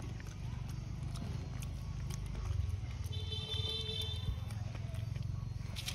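Plastic snack wrapper crinkling in a macaque's hand, as scattered clicks and crackles over a steady low rumble. About three seconds in there is a brief high-pitched squeak lasting about a second.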